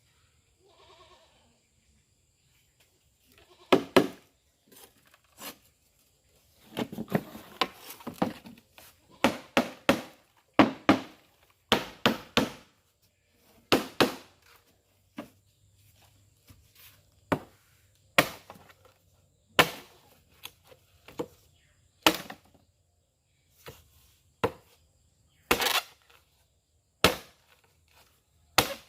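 Heavy blade chopping with sharp, irregular strikes about every one to two seconds, some in quick runs of two or three, typical of a freshly made meat cleaver being tried out. A brief, faint bleat-like call comes about a second in.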